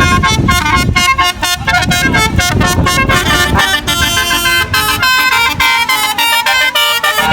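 Bus 'telolet' multi-tone musical horn playing a quick stepped melody. For about the first three and a half seconds a rumble of bus engine and traffic runs under it, then mostly falls away while the horn tune continues.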